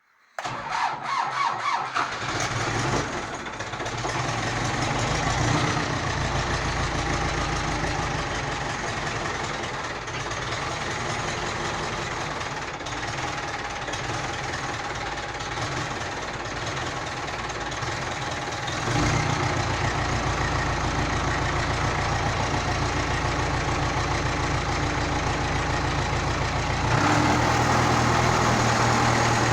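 Ursus 385 tractor's diesel engine being started: the starter cranks for a moment, the engine catches within about three seconds and settles into a steady run. The engine speed goes up about two-thirds of the way in and again near the end.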